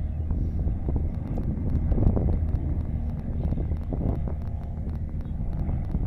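Golf cart driving along: a steady low motor and road hum with wind buffeting the microphone, and scattered light clicks and rattles.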